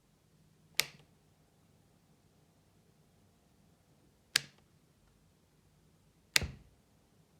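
Faint steady hum from the idle Arendal 1961 S1 subwoofer's transformer, with no signal playing. The hum is barely above the phone mic's noise floor and is broken by three sharp clicks, about a second in, at about four and a half seconds, and near the end.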